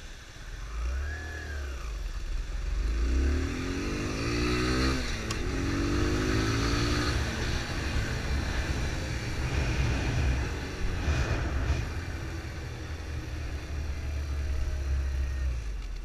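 Kawasaki Z125's small single-cylinder engine running as the motorcycle rides along. It revs up twice a few seconds in as it accelerates, with wind rushing past the microphone.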